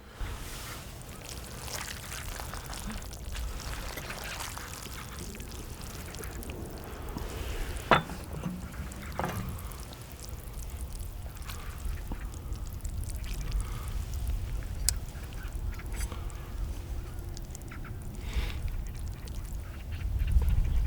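Eating sounds: wet chewing and slurping, with a couple of sharp clicks about eight and nine seconds in.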